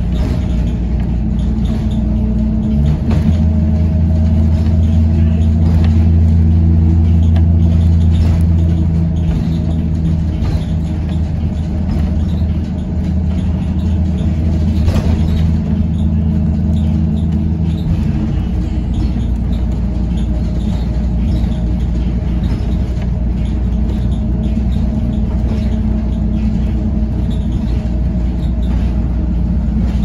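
Blue Bird Vision school bus under way, heard from inside the passenger cabin: a steady low engine and road drone that steps up about three seconds in and falls back about eighteen seconds in.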